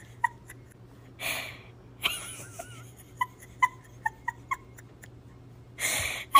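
Doberman whimpering in short high squeaks, about ten spread through, with a wavering whine about two seconds in. Two breathy huffs, one about a second in and one near the end.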